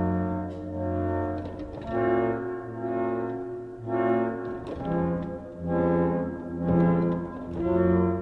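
Background music led by brass instruments, held notes in phrases of about a second, swelling and fading.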